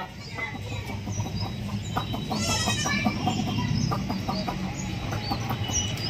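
Desi hens clucking over scattered grain, with small high peeps from chicks and one louder call about two and a half seconds in.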